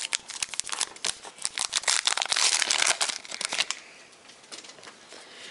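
A baseball card pack wrapper crinkling and tearing as it is ripped open, a dense crackling for about three and a half seconds, then fainter rustling of cards.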